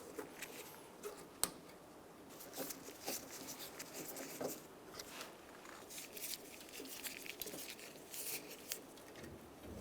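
Faint, irregular clicks and short scrapes of a hand tool working the door latch screws out of a pickup's door jamb.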